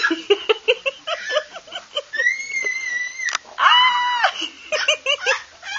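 Baby babbling and squealing: a quick string of short "ah" sounds, then a long, very high squeal and a louder shriek near the middle, then more short babbles.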